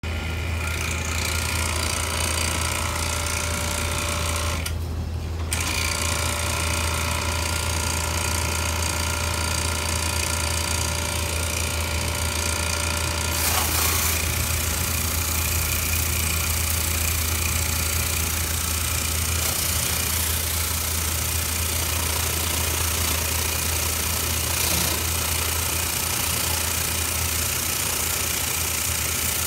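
A motor-driven machine running steadily, with a low hum under a rushing hiss. The hiss drops away briefly about five seconds in and grows louder about halfway through.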